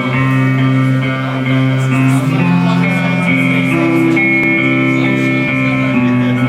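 Live band music: guitars playing held, ringing notes that change slowly, with no singing.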